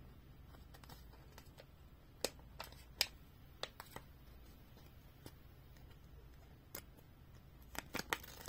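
Faint handling of a paper sticker sheet: a few scattered light clicks and crinkles over a low steady hum.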